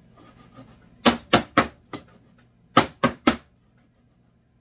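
A loaf pan of zucchini bread batter rapped down on the table to settle the bubbles: three sharp knocks about a second in, and three more near three seconds.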